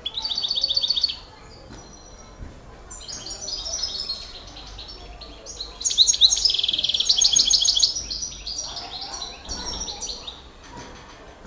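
A songbird singing in high twittering phrases. It opens with a short burst of rapid repeated trilled notes, then sings a run of varied twitters that build to a loud fast trill in the middle and trail off into softer twitters.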